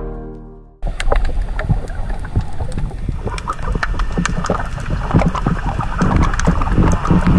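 Underwater sound picked up by a camera in its waterproof housing: a low, rough rumble of moving water with many sharp clicks and crackles, starting abruptly about a second in and cutting off at the end.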